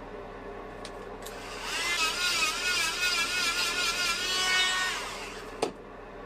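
Small high-speed electric power tool switched on, running with a whine that wavers up and down in pitch, then spinning down after a few seconds; a sharp click near the end.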